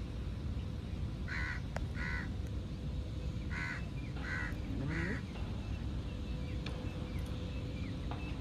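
A crow cawing: five short caws, a pair about a second in and a run of three evenly spaced near the middle, over a steady low rumble.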